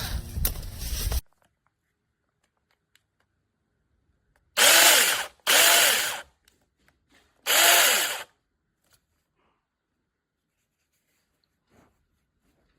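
A HOPTO 6-inch cordless mini chainsaw's electric motor and chain run and cut off about a second in. Then come three short bursts of it running, each under a second long, the whine rising and falling in each.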